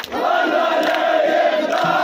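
Large crowd of football supporters chanting together in unison, many men's voices singing the same held line loudly.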